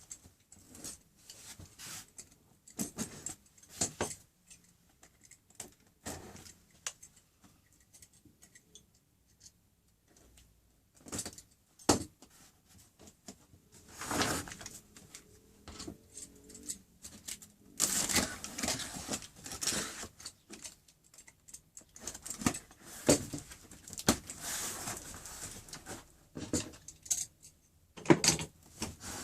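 Unpacking a boxed saw-track accessory pack: scattered clicks, knocks and rustling of packaging as the guide rails, case and clamps are handled. The handling is busiest from about halfway through.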